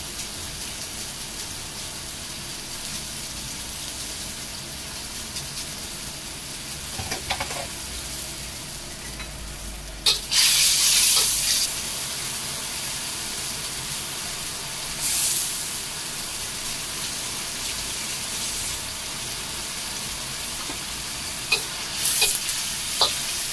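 Tuna sautéing in oil in a stainless steel wok, a steady sizzle. About ten seconds in the sizzle flares louder for a second or so, as chopped greens go into the hot pan. Near the end a spatula scrapes and taps against the wok as the mixture is stirred.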